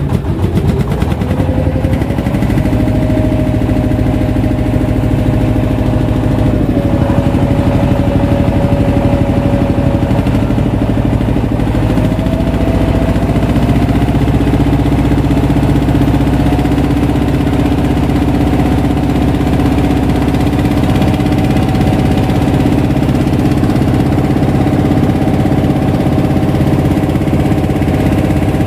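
Engine of a wooden fishing boat running steadily under way. Its pitch steps up slightly about a second in and again around twelve seconds in.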